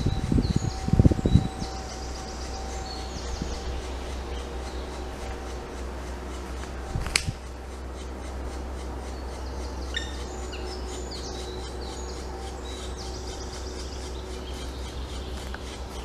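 Black woodpecker nestlings begging from inside the nest hole with rapid buzzing calls, like a zipper pulled quickly up and down, in a burst over the first two seconds and again through the last six. A few loud low muffled thumps come in the first second and a half, and a single sharp click about seven seconds in.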